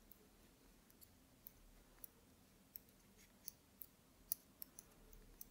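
Metal knitting needles clicking together as stitches are knitted in cotton yarn: about ten faint, irregular clicks, one louder a little past four seconds in, against near silence.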